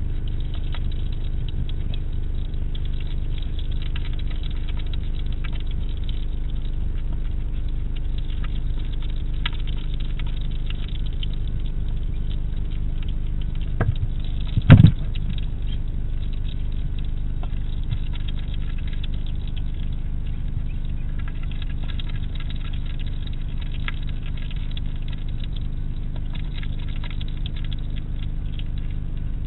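Hedgehog eating from a food dish: small clicks and crunches of chewing over a steady hum. About halfway through there is one loud knock, the dish being bumped.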